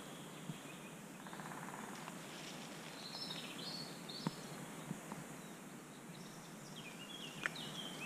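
Faint woodland birdsong: short high chirping phrases a few seconds in and again near the end, over a steady faint hiss of background noise, with a couple of small clicks.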